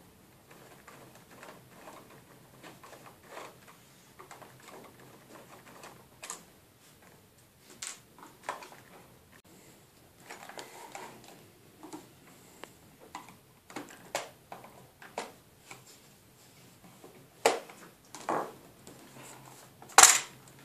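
Scattered small clicks and knocks of a screwdriver and hands working on a car sat-nav unit, taking the screws out of its back cover. The sharper knocks come in the second half, and the loudest is near the end.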